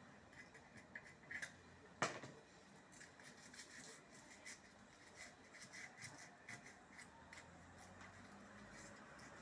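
Faint clicks and rubbing from hands handling small parts and tools, with one sharp click about two seconds in.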